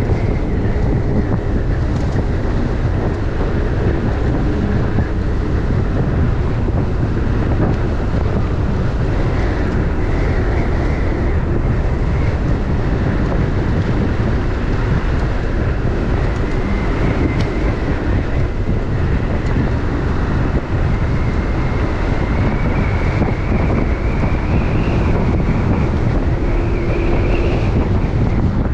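Steady wind buffeting a body-camera microphone while riding at speed. A faint high whine underneath wavers in pitch and climbs a little near the end.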